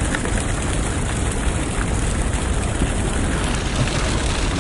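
Steady rushing background noise with a low rumble, even throughout, with no distinct events.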